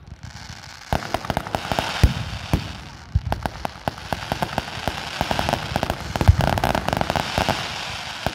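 Aerial fireworks display: launch tubes firing and shells bursting with thumps, the heaviest about two seconds and six seconds in, over steady crackling and hissing from rising comets and crackle effects.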